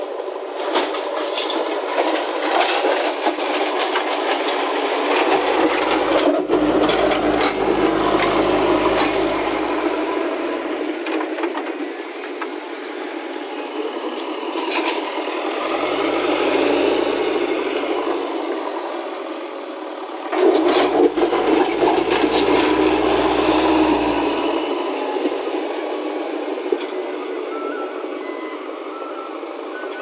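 JCB backhoe loader's diesel engine running hard, its deep note swelling in three spells as the front loader bucket pushes into broken stone, with sharp knocks and scraping of rock against the steel bucket.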